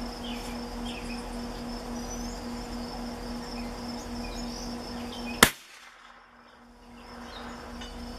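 A single sharp crack of a Savage Mark II bolt-action .22 LR rifle firing, about five and a half seconds in, over a steady background of chirping insects.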